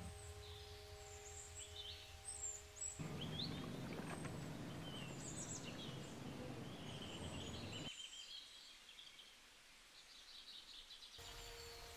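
Faint outdoor ambience of small birds chirping repeatedly. A louder even hiss, fitting water sprinkling over the seedlings, runs from about three to eight seconds in.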